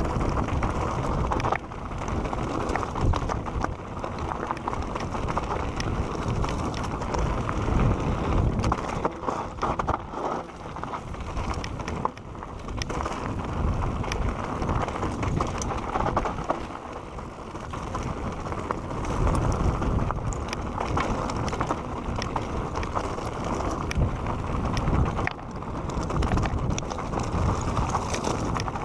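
Santa Cruz Bronson full-suspension mountain bike descending a dirt singletrack at speed: tyres rolling over dirt and roots, with many short rattles and clicks from the bike over rough ground. Wind rushes on the microphone and rises and falls with speed.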